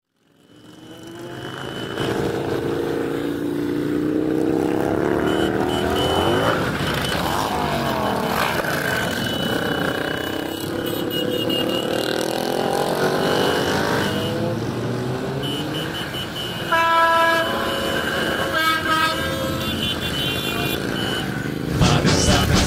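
Motorcycle engines passing one after another, their pitch rising and falling as each goes by. A vehicle horn sounds in a few short blasts about three-quarters of the way in, and music cuts in just before the end.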